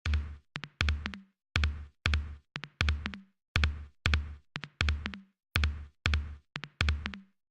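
Music: a sparse electronic drum beat playing alone, separate deep thumping hits in an uneven rhythm with short silences between them.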